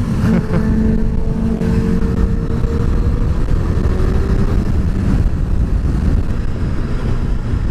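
Motorcycle on the move, with heavy wind rush on the helmet microphone and an engine note that slowly falls in pitch over the first few seconds as the bike eases off.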